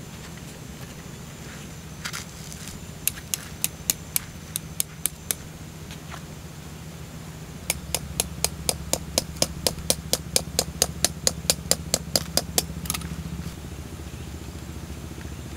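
Tent guy lines being tightened and pegged: runs of quick, evenly spaced sharp clicks, about four a second, in two bursts, over a steady low hum.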